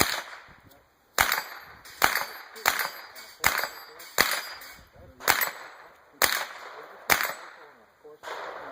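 Shotgun firing in a rapid string, about nine sharp shots roughly a second apart, each with a short echo.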